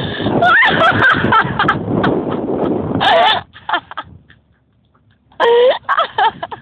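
People's voices calling out and shouting over a loud, rough rushing noise for the first few seconds, then short shouts about three seconds in and again near the end, with a brief near-quiet gap between them.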